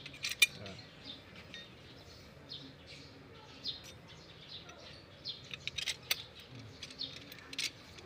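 Steel sections of a Toyota Fortuner's spare-tire lowering rod clinking and clicking as they are fitted together by hand. One sharp metallic clink about half a second in is the loudest, followed by scattered lighter clicks.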